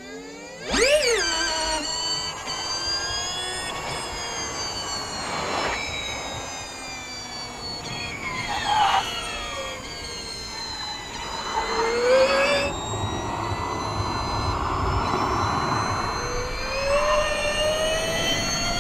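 Porsche 99X Electric Formula E car's electric drivetrain whining at high pitch, rising sharply as it accelerates about a second in, then sweeping up and down in pitch as the car speeds up and slows, over tyre and road noise.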